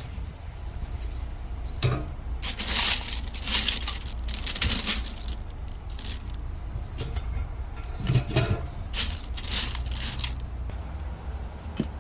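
Hard objects clattering and scraping as they are handled, in a run of short, sharp knocks and rattles from about two seconds in until about ten seconds in, over a steady low rumble.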